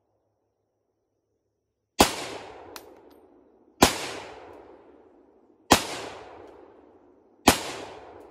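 Four rifle shots from an AR-10 fitted with a muzzle brake, fired about two seconds apart, each trailing off in a long echo through the woods.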